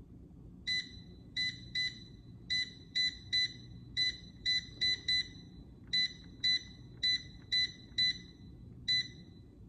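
Digital air fryer's touch panel beeping as its time button is pressed over and over: about sixteen short, identical beeps in quick runs of two or three a second. Each beep is one press stepping the cook time down a minute, towards 25 minutes.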